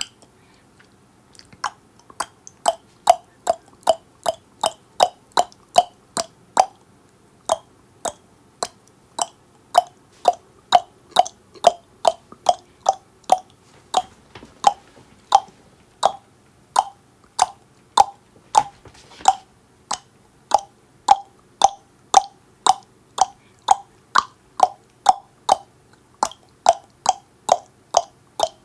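Tongue clicks, repeated steadily at about two to three a second, with a brief pause just after the start.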